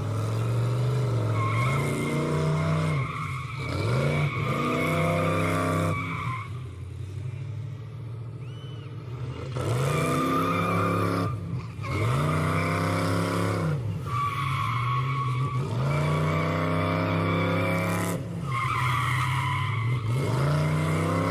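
Chevrolet K5 Blazer engine under way, revving up again and again: its pitch climbs and then holds, about half a dozen times, with a quieter lull about a third of the way in. A steady higher tone runs alongside the louder stretches.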